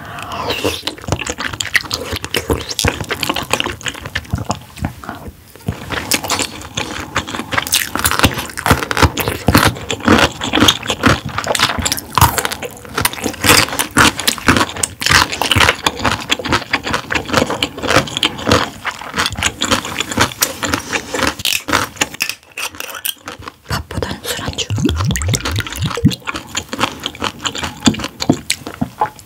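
Close-miked eating sounds: wet, sticky chewing and mouth smacks on soft, chewy squid innards, a dense run of clicks with a brief lull a little past two-thirds of the way through.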